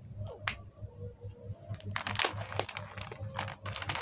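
Crinkling and crackling of a Kinder Joy's plastic wrapper as a toddler fumbles with it, trying and failing to open it. Scattered clicks and short crackles, busiest about halfway through.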